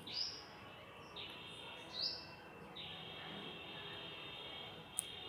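Bird calling outdoors: four short, high chirps about a second apart, followed by a faint steady high ringing over the second half, and a sharp tick near the end.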